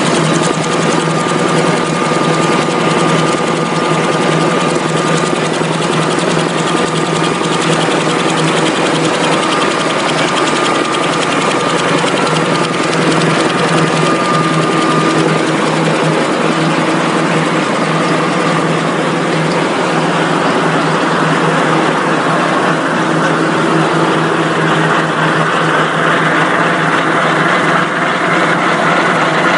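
An 8-line V-fold facial tissue interfolding machine running: a loud, steady mechanical din with a thin steady whine through the first half. The noise turns brighter and hissier over the last third.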